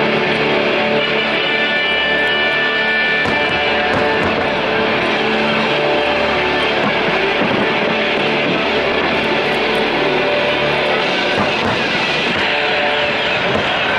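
Music with guitar and a bass line that changes note every second or so.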